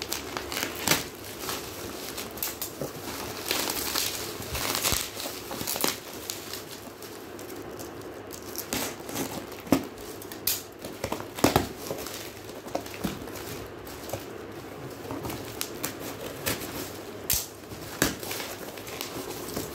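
Bubble wrap and plastic packaging film crinkling and crackling as it is handled and cut open with scissors, with irregular sharp snaps and rustles throughout. Near the end the cardboard box inside is pulled open.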